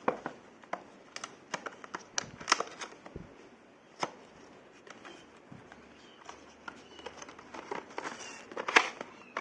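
Packaging being handled by hand: scattered light clicks and crinkling rustles of a small cardboard box and its contents being opened and sorted.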